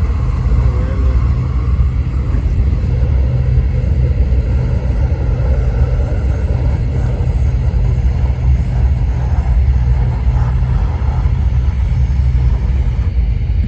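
Propane roofing torch burning steadily with a loud, constant rumbling roar, heating torch-down roofing to stick on a patch.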